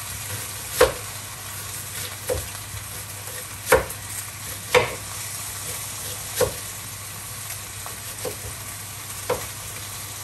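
A kitchen knife slicing an onion into rings on a plastic cutting board, about seven irregular knocks as the blade hits the board, over the steady sizzle of pork liver slices frying in a pan.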